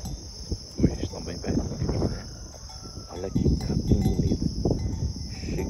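Steady high chirring of insects in the grass, with irregular low rustles and crunches underneath.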